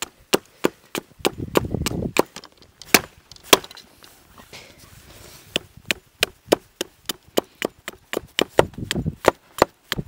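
Hatchet chopping into a wooden branch: a rapid, uneven run of sharp woody knocks, about three a second.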